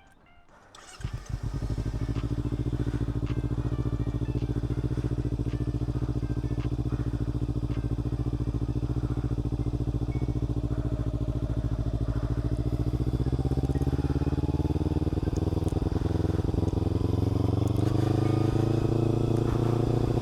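Kawasaki Ninja 300 parallel-twin engine starting about a second in and then running steadily at idle, its engine speed creeping up over the last several seconds.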